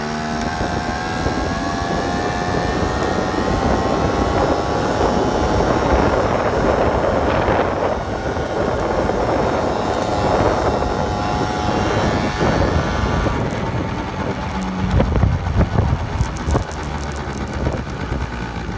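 A 1986 Honda Spree's 50cc two-stroke scooter engine running under way. Its buzz rises in pitch over the first few seconds as it picks up speed, then holds steady. Wind noise rushes over the microphone throughout, with low rumbling gusts a little past the middle.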